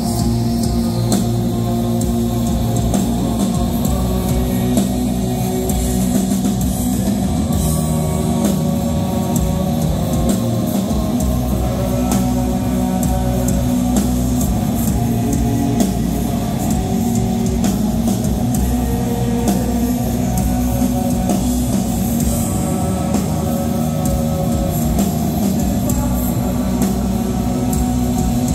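Rock band playing live: electric guitars, bass and drum kit in a steady, dense wash of sound, heard through the club's PA from within the audience.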